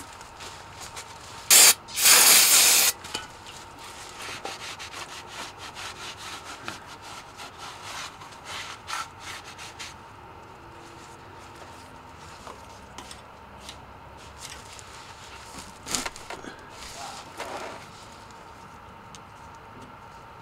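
Shop towel rubbing and wiping the cover-mounting flange of an F-150's rear differential housing in a run of short, uneven strokes, cleaning the gasket face. About two seconds in there are two short, loud rushing bursts, the second lasting about a second. More strokes come near the end.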